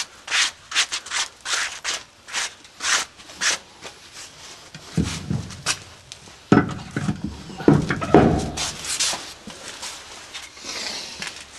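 Quick repeated scrubbing strokes, about two or three a second, as a surface is rubbed clean by hand. Then come a few heavier knocks and clunks, about five to nine seconds in, as parts are handled and set down.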